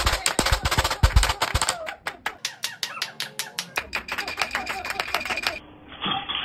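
Hands clapping fast and rhythmically, a dense run of sharp claps that thins out and cuts off abruptly about five and a half seconds in.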